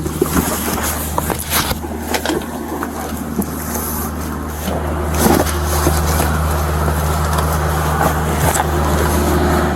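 A vehicle engine running steadily beside a road, with traffic noise and a few short knocks and rustles.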